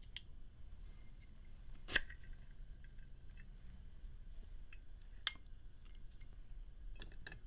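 1967 Zippo Slim lighter being handled: three sharp metallic clicks, the loudest about two seconds in and another a little after five seconds with a short ring, then a few faint ticks near the end.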